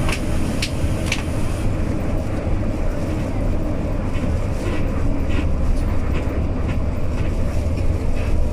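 Steady low rumble of an intercity bus's engine and tyres heard from inside the cabin while cruising on a toll road, with a few light clicks in the first second or so.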